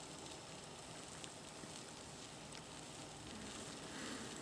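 Faint rustling with scattered tiny crackles: superworm (Zophobas) larvae crawling and burrowing through dry wood shavings.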